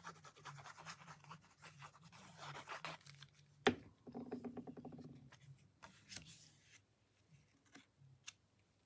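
Liquid glue applicator scratching and rubbing across cardstock for about three seconds. A sharp tap follows, then cardstock rustling as a panel is handled and pressed down onto a card, with a few light taps before it goes quiet.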